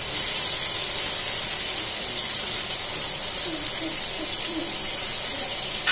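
Ivy gourd and tomato sizzling in oil in a cast-iron skillet as they are turned with a wooden spatula: a steady high hiss.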